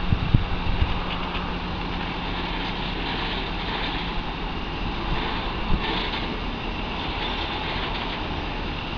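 Heavy engine of a mobile crane running steadily as it lifts a railcar body, with a few knocks in the first second and one more about six seconds in.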